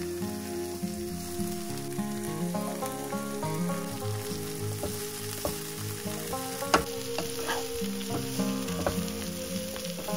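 Broccoli florets and sliced onion sizzling in a frying pan while a wooden spatula stirs them, scraping and knocking against the pan, with one sharp knock about seven seconds in. Background music plays underneath.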